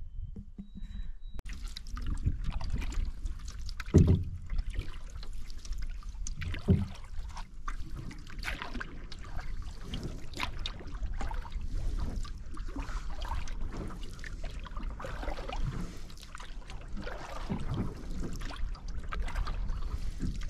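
Canoe being paddled: irregular paddle strokes and water splashing and dripping over a low rumble, with two louder thumps about 4 and 7 seconds in.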